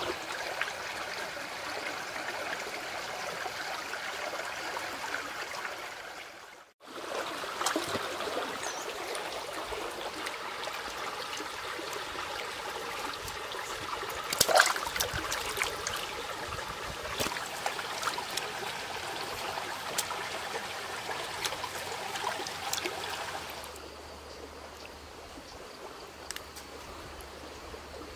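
Shallow stream water running and trickling over a pebble bed, with a few sharp splashes about halfway through. Near the end the water gives way to a quieter, steady background.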